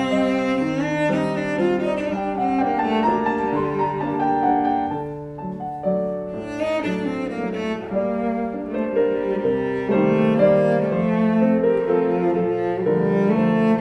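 Cello and piano playing together, the cello bowed, in the instrumental opening of a Mexican folk song.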